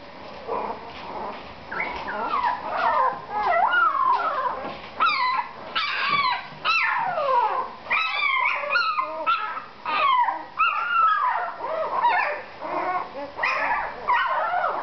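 Very young puppies whimpering and yipping over and over, high thin whines that slide up and down in pitch, several at once.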